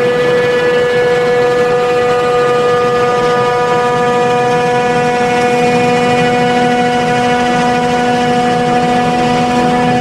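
Claas Jaguar 950 forage harvester chopping maize at full working speed: a steady machine whine with engine drone beneath, holding one pitch throughout.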